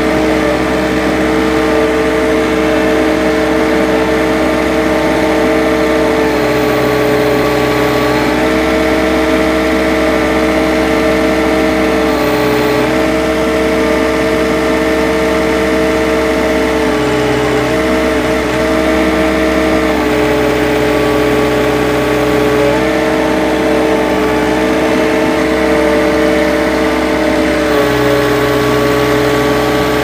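Compact tractor engine running steadily at a constant speed, its pitch shifting slightly a few times as the loader is worked.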